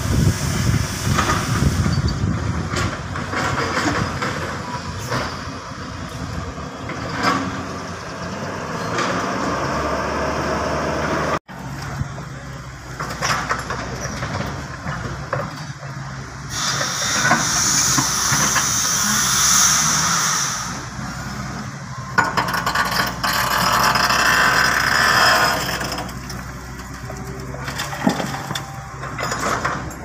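Heavy diesel engines of dump trucks and an excavator running. A loud hiss lasts a few seconds about halfway through, with occasional knocks as the excavator loads earth and rock into a dump truck.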